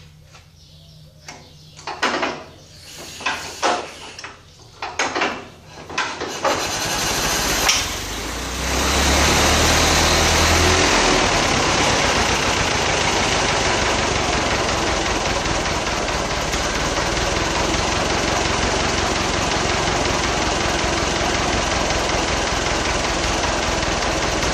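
1914 White five-ton truck engine being started by hand crank: a string of separate bangs about a second apart as it turns over. About six seconds in it catches and runs, loudest for a few seconds, then settles to a steady idle.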